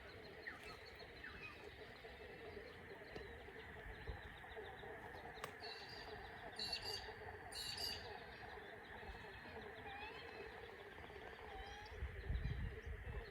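Several wild birds chirping and calling in a mixed chorus, with two sharper, louder calls about seven seconds in. A low rumble comes in near the end.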